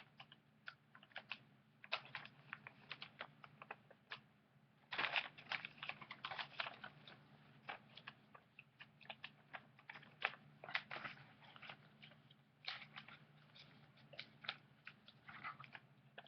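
A sheet of paper being folded and creased by hand: a long run of irregular crinkles and crackles, over a faint steady low hum.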